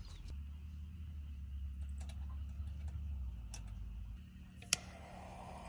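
A few light clicks and taps, with one sharper click about four and a half seconds in, over a low steady rumble.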